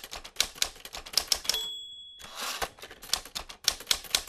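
Manual typewriter typing: a fast run of key clacks, the margin bell dings once about a second and a half in, the carriage is pushed back with a short sweep, and rapid keystrokes start again.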